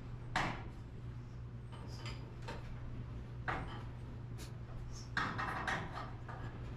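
Torsion springs on a garage door being wound by hand with winding bars: scattered metallic clicks and knocks as the bars are seated and turned in the winding cones, with a cluster of knocks near the end, over a steady low hum.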